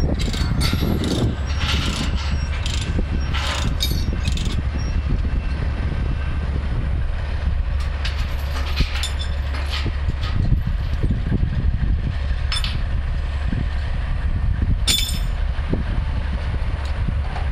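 Heavy diesel truck engine running steadily, with metal clanks and rattles, most of them in the first five seconds.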